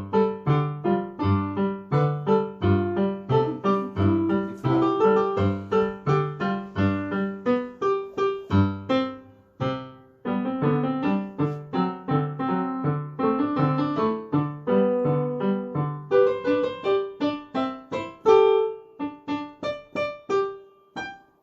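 A polka played from memory on a keyboard instrument by a young music-school pupil: brisk, evenly struck notes over a bass line. The playing breaks off briefly about nine and a half seconds in and again near the end.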